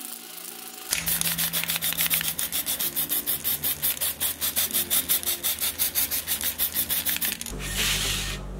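Fast, even rubbing strokes, about six a second, then a short hiss near the end.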